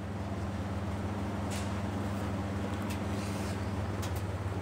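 MAN TGS 26.480 truck's straight-six diesel engine idling steadily, a low even hum, with a few faint short ticks over it.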